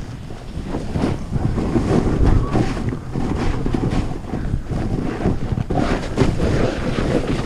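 Wind rushing over the microphone of a skier moving downhill, mixed with the continuous hiss and scrape of skis carving through chopped-up, cruddy snow.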